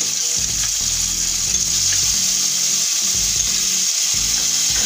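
Cumin paste sizzling in hot mustard oil in an aluminium kadai, a steady high frying hiss, with background music underneath.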